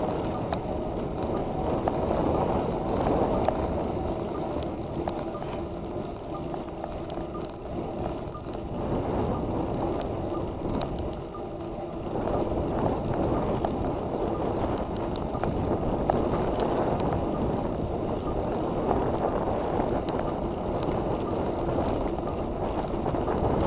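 Steady rush of wind on a moving camera's microphone, mixed with road and tyre noise; it eases somewhat midway and picks up again.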